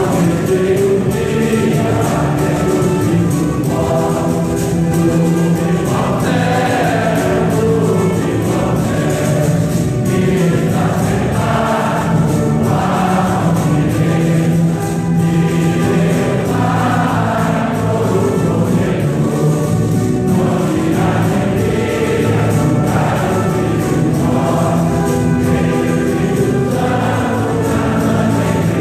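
A choir singing a religious song with instrumental accompaniment.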